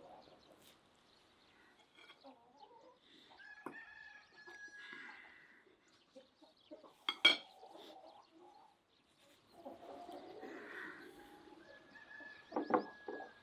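Chickens clucking and calling in the background, with two sharp clinks of cutlery on a plate, one about seven seconds in and one near the end, the loudest sounds.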